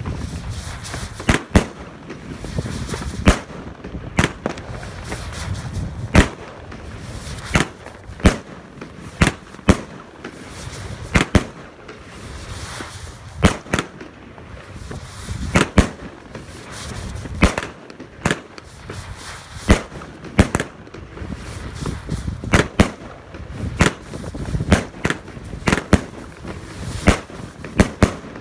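Pangu Fireworks 'Brasilian Box' (PM3007) 19-shot firework cake firing: a steady run of sharp bangs from shots launching and bursting, about one or two a second.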